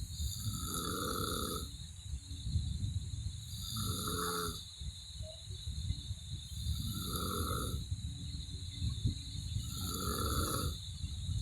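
A woman snoring in her sleep: four snoring breaths about three seconds apart, each lasting about a second.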